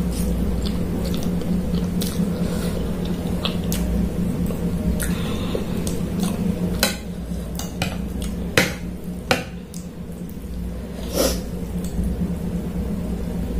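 Metal fork and spoon clinking and scraping against a ceramic plate as noodles are gathered, with several sharper clinks in the second half, over a steady low hum.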